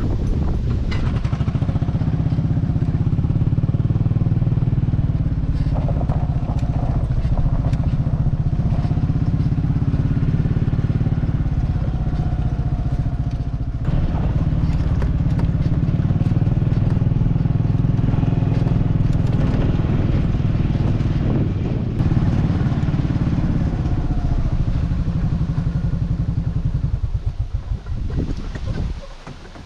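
Small engine running steadily at a constant speed, then falling away in a few uneven pulses near the end.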